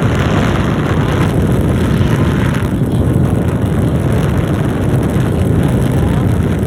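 Jenin hand-held hair dryer running, its fan blowing a steady rush of air.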